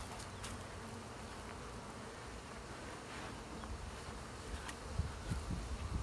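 Honey bees from a newly installed package buzzing around an open hive box, a steady drone. A few low bumps come near the end.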